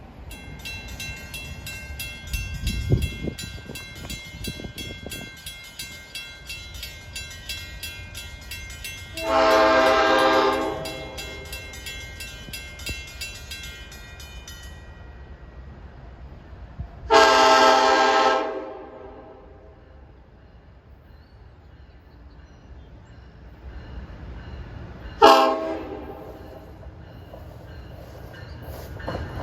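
Nathan K5LLA five-chime air horn on NJ Transit locomotive #4502 sounding the grade-crossing signal: a long blast about nine seconds in, another long one about seventeen seconds in, and a short one near the end. A high ringing runs through the first half and stops about fifteen seconds in.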